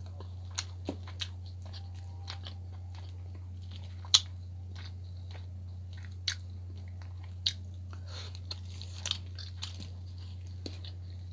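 Close-miked mouth sounds of a person chewing soft food: scattered wet clicks and smacks, with one sharper click about four seconds in. A steady low hum runs underneath.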